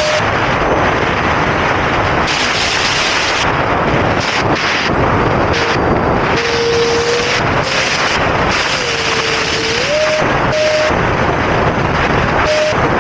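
Electric ducted fan of an E-flite Habu STS 70 mm RC jet whining in flight under a heavy rush of wind noise on the onboard camera. The fan's tone dips lower twice as the throttle eases, then climbs back about ten seconds in.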